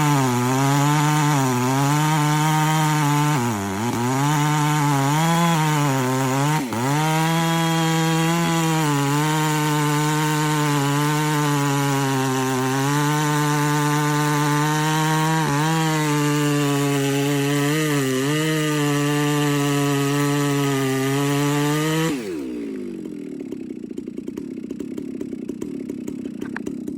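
Custom ported, decked-head Stihl 660 clone chainsaw with a 36-inch bar running at high revs. For the first seven seconds its pitch dips and recovers several times as it bogs under load and frees up, typical of cutting wood, and it dips briefly twice more later on. About five seconds before the end the throttle is released and the engine drops to idle.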